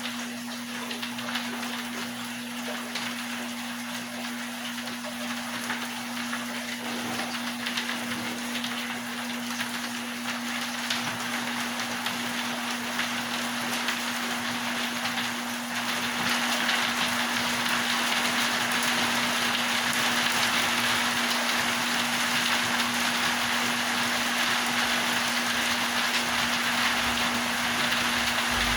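Steady rain-like water noise over a constant low hum; the water sound grows louder about halfway through.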